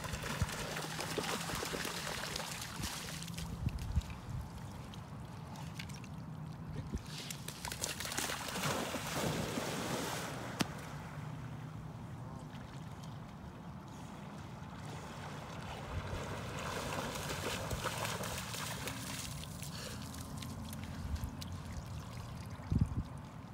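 Water splashing and trickling as a black Labrador retriever swims and wades through shallow water on a retrieve.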